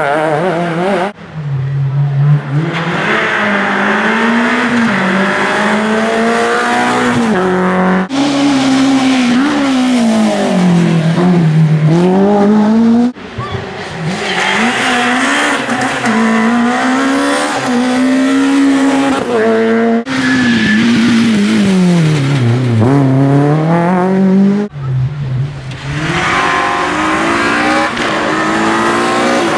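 Rally car engines, one car after another in short clips, each revving hard as it passes, its pitch climbing, then dropping as it lifts off and changes down, then climbing again. The sound changes abruptly from one car to the next every few seconds.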